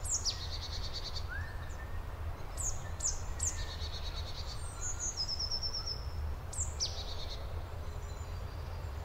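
Several songbirds singing. One song, a quick down-slurred whistle running into a short trill, comes several times, with other chirps and a rapid series of notes in between, all over a low steady rumble.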